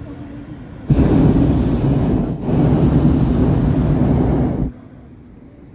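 Hot air balloon's propane burner firing in two long blasts with a short break between them: it cuts in sharply about a second in and cuts off sharply near the end.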